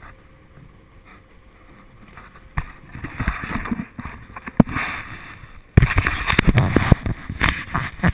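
Wind buffeting the camera's microphone on a boat, with rubbing and knocks from the camera being handled. Quiet at first, it turns rough and loud about a third of the way in, with one sharp knock near the middle and the loudest, most broken stretch in the last quarter.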